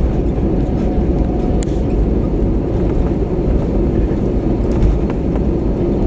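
Cabin noise inside an Airbus A320-200 during its landing rollout: a steady low rumble of the wheels on the runway and the engines. One faint click about one and a half seconds in.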